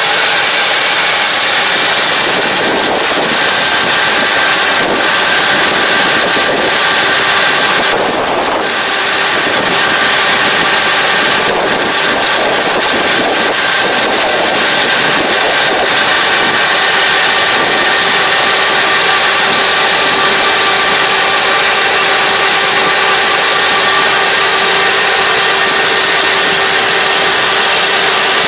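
Kubota DR575 five-row combine harvester running under load as it cuts rice: a steady diesel engine hum with a constant whine from the cutting and threshing machinery.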